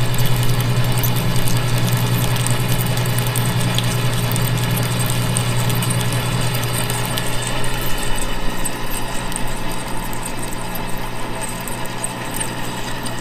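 Walker Turner drill press with power feed running, drilling a half-inch hole through 1.5-inch solid steel: a steady motor hum with faint clicks from the cut. The low hum eases off about eight seconds in.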